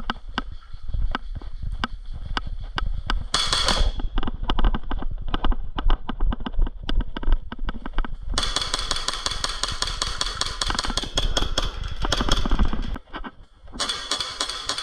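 Airsoft guns firing during a game: a run of sharp clicks and cracks, irregular at first, then denser and brighter in the second half. A steady low rumble of wind or handling noise on a body-worn microphone runs underneath.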